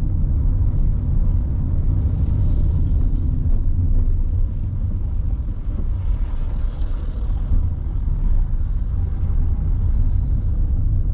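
Low, steady rumble of a car driving at city speed, heard from inside the cabin.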